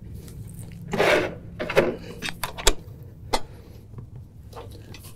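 Hands working small steel seat-mounting hardware on a John Deere Gator TX seat bracket: scattered light clicks and knocks as washers, spacers and nuts are worked onto the studs, with a louder rubbing noise about a second in.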